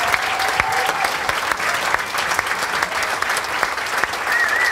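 Audience applauding and cheering as a concert piece ends, with a wavering high-pitched cheer near the end.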